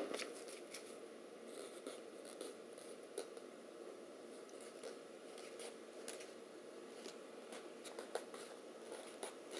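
Quiet room with faint steady hiss and scattered small clicks and light rustles, as of something being handled.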